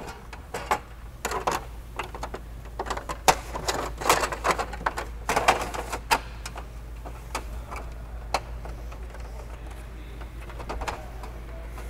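Concept2 rowing machine's mesh flywheel cage being fed back around the flywheel housing by hand: irregular clicks, rattles and short scraping rustles as the mesh slides over the housing.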